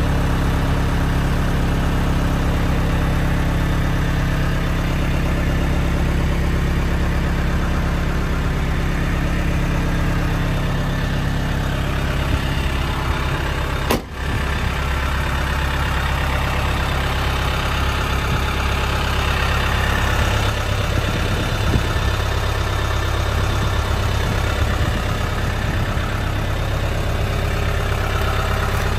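A 1979 Land Rover 109 Series III Santana's engine idles steadily, with one brief click and dropout about halfway through.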